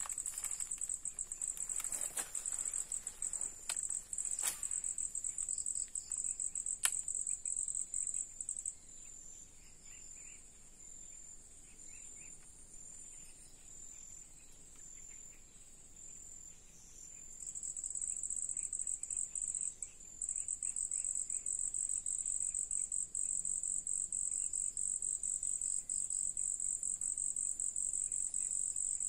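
Insects calling in a steady, high-pitched drone, which falls to a quieter, broken trill for about nine seconds in the middle and then returns at full strength. A few sharp clicks sound in the first seven seconds.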